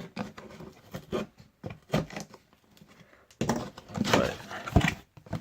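Handling and opening of a cardboard shipping package: scattered rustles, scrapes and small knocks, busiest from about three and a half to five seconds in, with a sharp knock near the end of that stretch.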